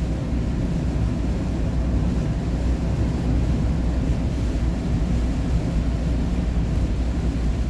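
Steady low rumble of engine and road noise inside a vehicle's cabin while driving at speed on a highway.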